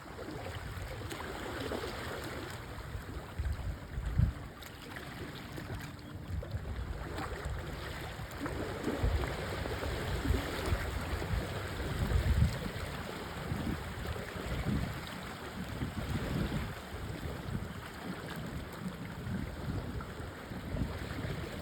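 Wind gusting on the microphone over a steady wash of water at the shoreline, with irregular low rumbles from the gusts.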